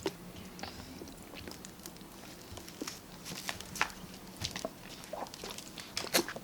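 Eating sounds: chewing with scattered small clicks and taps, the sharpest right at the start and about six seconds in, over a faint low hum.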